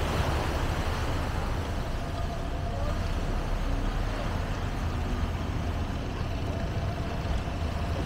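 Steady low rumble of running engines under an even outdoor hiss.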